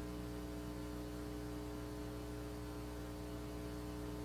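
Steady electrical hum: a stack of constant tones over a faint hiss in the audio signal.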